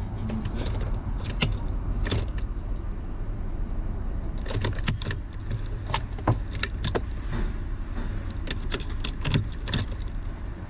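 Ignition key on its keyring jangling, with a string of irregular light metallic clicks as it is handled and turned. A steady low hum runs underneath.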